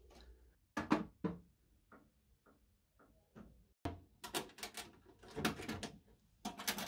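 Drawer of a metal tool chest being worked: a run of sliding and clattering knocks as it is pulled and pushed, after a few short clicks and knocks about a second in.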